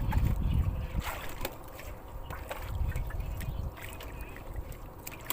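Wind rumbling on the microphone, with light water sloshing and a few faint clicks and knocks.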